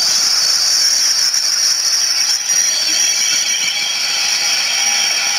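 A loud, steady hiss with its strongest part high up, unbroken and without rhythm.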